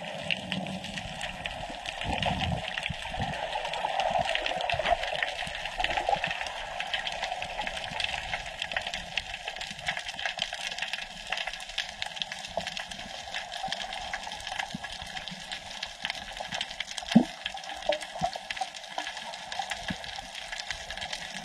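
Underwater sound picked up by a submerged camera: a steady muffled hiss with constant fine crackling clicks, and one brief louder low thump about seventeen seconds in.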